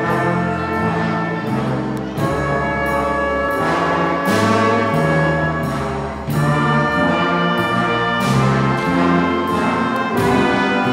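Student jazz band playing live: a brass section holding chords over bass notes, keyboard and drum kit, with regular drum and cymbal hits.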